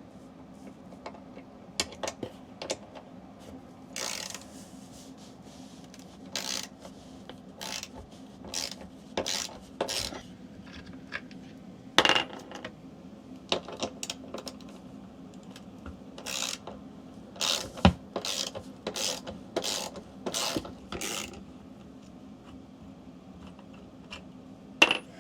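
Hand socket ratchet clicking in short, irregular runs of sharp clicks as lag screws holding the slide-out motor bracket are backed out.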